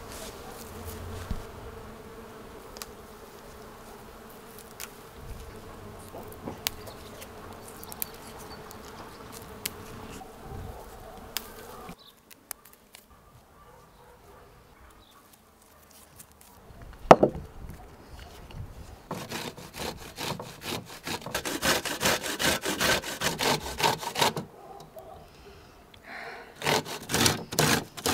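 Bees buzzing steadily in flowering cherry blossom. After a pause there is one sharp knock, then food is grated in quick rasping strokes on a metal box grater, in two runs of several seconds.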